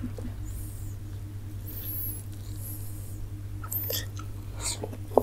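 Steady low hum under faint mouth and hand noises; about four seconds in, a few soft wet clicks and smacks as a bite of luchi with rasgulla goes into the mouth and chewing starts.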